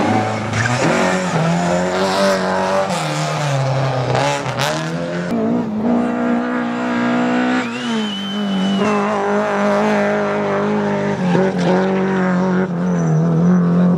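Rally car engine revving hard, its pitch rising and falling with throttle and gear changes, with a brief tyre squeal about eight seconds in.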